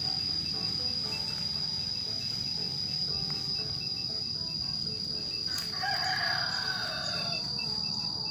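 Crickets trilling steadily with a high, even tone. A rooster crows once, about six seconds in, for about a second and a half.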